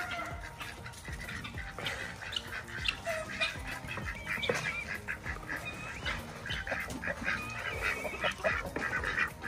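A flock of farmyard poultry calling, ducks, chickens and guinea fowl among them, in a steady run of short, harsh, honking calls.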